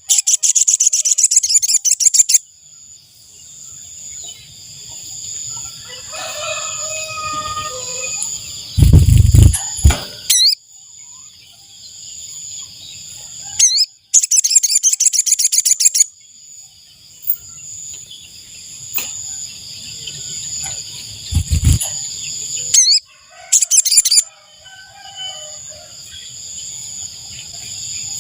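Sogon (sogok ontong) bird calls played as a trapping lure: loud, high, rapidly pulsing trills in bursts of about two seconds, three times, over a steady high-pitched insect drone. Two loud low thumps break in between.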